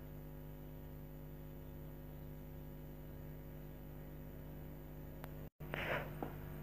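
Low, steady electrical hum with faint hiss, the recording's background between narrated lines, broken by a brief dropout about five and a half seconds in and a faint short noise just after.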